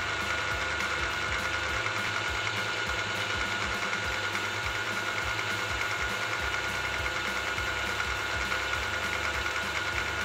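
Milling machine running with a countersink used as a cutter, taking light nibbling cuts into a brass bar: a steady whine over the motor's hum, with irregular low knocks.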